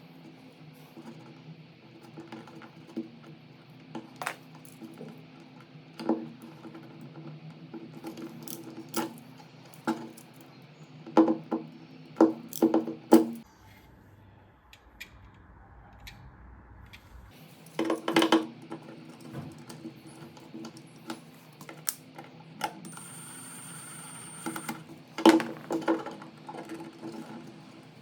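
Small metal parts and hand tools clicking and clinking against each other and against socket and switch fittings, in scattered sharp strikes with a few quick clusters. A steady low hum runs underneath and drops out for a few seconds about halfway through.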